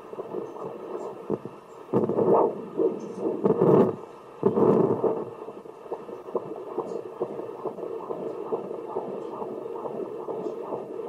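Fetal Doppler ultrasound: a few seconds of loud irregular whooshing and rubbing as the probe is moved over the belly, then the baby's fast, regular heartbeat pulsing steadily, which is judged quite normal.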